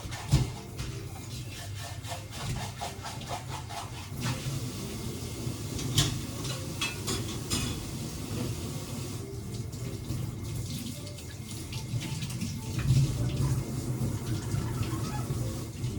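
Water running, with a few sharp clicks and knocks, the loudest about half a second in.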